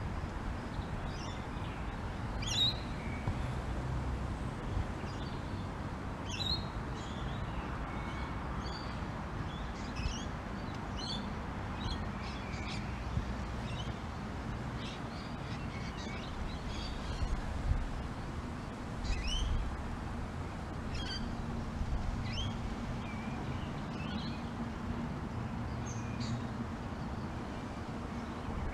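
Light rain falling steadily, with birds calling in short chirps now and then over it. A low rumble of distant thunder sits underneath and swells a few times.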